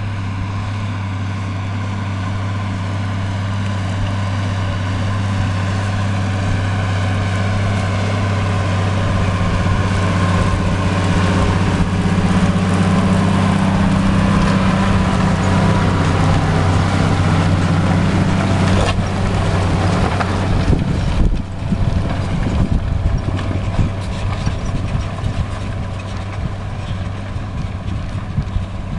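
New Holland TM165 tractor's diesel engine working under load while ploughing, a steady hum that grows louder as it comes closer. About two-thirds of the way through there is a single knock, and after it the engine sound turns rougher and a little quieter.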